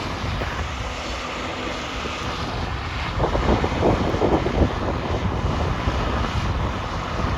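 Steady drone of farm machinery engines running in the field, with wind buffeting the microphone around the middle.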